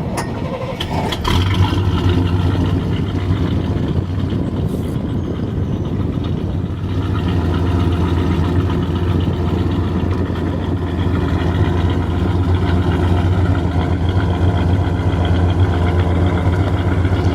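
GM 350 crate small-block V8 with a mild performance cam, breathing through headers and dual exhaust, running at idle with a steady low exhaust note. It grows louder about a second in and again about seven seconds in.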